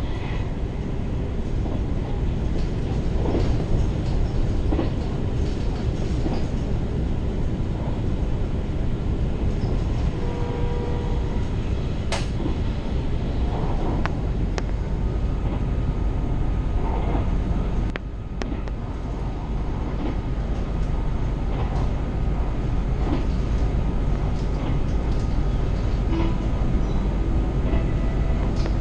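Train running along the track: a steady low rumble with occasional sharp clicks and knocks, the loudest about twelve seconds in.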